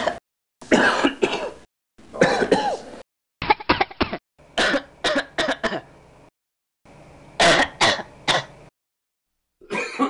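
A string of separate human cough and throat-clearing sound effects. There are about six short recordings of a few harsh hacks each, cut apart by stretches of dead silence.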